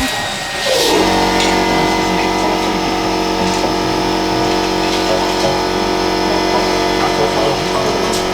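Small electric motor and gearing of a radio-controlled model spinning up with a short rising whine about a second in, then running steadily.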